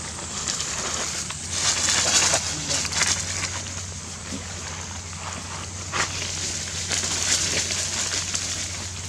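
Dry leaf litter crackling and rustling in two spells of a second or so each, with a sharp click about six seconds in, over a steady low hum.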